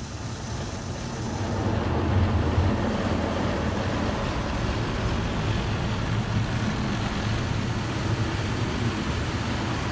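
Jim Coleman Fusion X automatic car wash making a pass with its rotating brushes, heard from inside the car's cabin as a steady noise of brushes and machinery. It grows louder over the first two seconds as the brushes reach the car.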